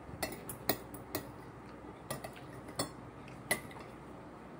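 Metal spoon and fork clinking against a plate while eating: several short, sharp clinks at irregular intervals.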